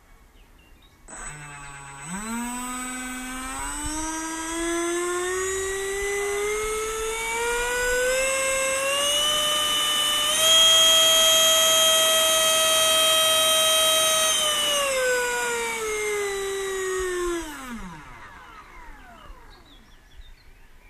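64 mm electric ducted fan of a T-45 Goshawk RC jet model run up on the ground. Its whine starts about a second in, climbs steadily in pitch for about nine seconds, holds at full throttle for about four seconds, then winds down and stops.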